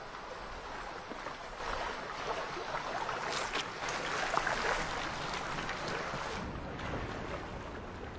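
Rushing water, a steady wash that grows a little louder in the middle and then eases off.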